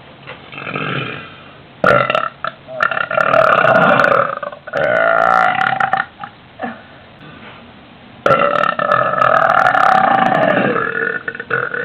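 A woman's very loud, drawn-out burps of swallowed air: a long one starting about two seconds in and rattling out near five seconds, then a second long one starting about eight seconds in.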